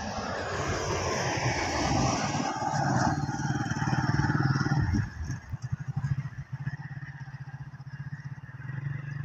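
A motor vehicle passing close by. Its engine and road noise swell over the first few seconds, then drop sharply about five seconds in, leaving a low, throbbing engine sound.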